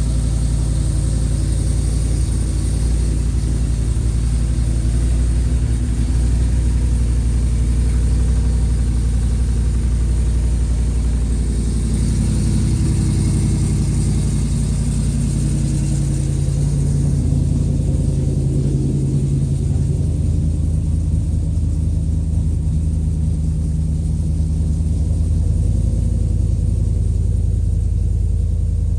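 Cammed Gen3 Hemi V8 in a Jeep JK, running steadily at idle with a low rumble just after starting. It has been sitting, so its lifters have leaked down.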